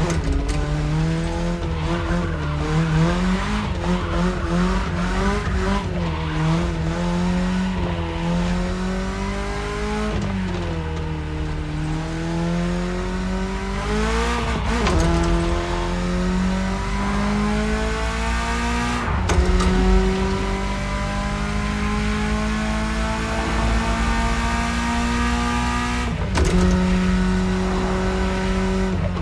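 BMW E30's engine pulling under way, revs wavering early on, then climbing and dropping sharply at several gear changes, with one long, steady climb in revs in the second half.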